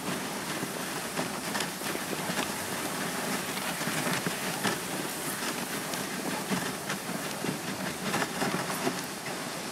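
Dog sled runners sliding and scraping over packed snow as the dogs pull the sled along: a steady rushing noise with many small irregular clicks and crunches.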